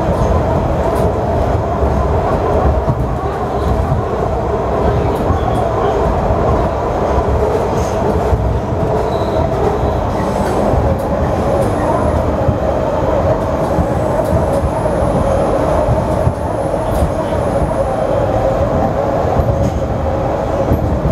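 Ride noise inside a Budd-built Metrorail rapid transit car under way: a steady rumble and hiss of wheels on rail, with occasional short clicks. A faint high wheel squeal runs for a few seconds past the middle.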